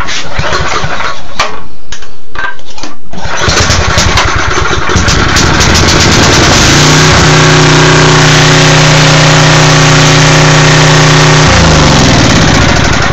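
10 HP Tecumseh single-cylinder small engine on a Coleman generator turning over and catching about three seconds in. It then runs loud and steady, its pitch dropping near the end. It fires now that its ignition coil's air gap is set correctly and the kill wire no longer grounds against the coil.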